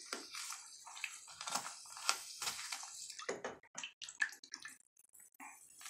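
Bath bomb being squeezed and crumbled by hand under bathwater, with irregular splashing and sloshing of the water as the hand works it, the splashes thinning out near the end.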